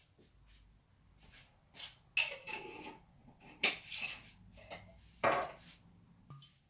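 A few clattering knocks and short scrapes of kitchen items being handled and set down, about four separate bursts spread over several seconds.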